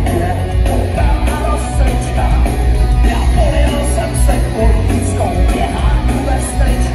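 Punk rock band playing live through a PA in a concert hall: distorted electric guitar, bass and drums with a singer, loud and steady.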